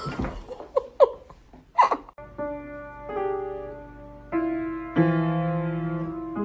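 A few sharp knocks and rustles of cardboard boxes, then a cat stepping on an upright piano's keys, sounding several clumsy clusters of notes one after another that ring on.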